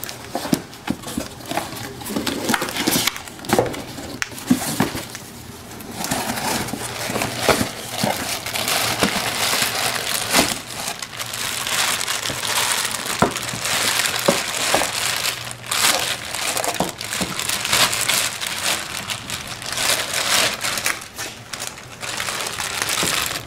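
Plastic packaging bag crinkling and rustling while a new brake caliper is unwrapped and handled in a cardboard box, with scattered crackles and light knocks; it grows louder about six seconds in.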